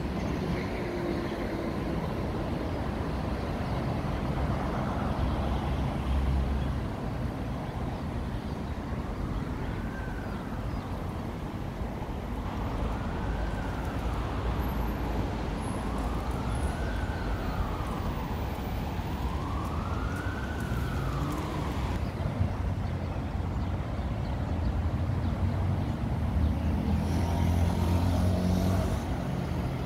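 An emergency-vehicle siren on a slow wail, rising and falling five times, starting a few seconds in and stopping after about twenty seconds, over steady street traffic. A car passes near the end.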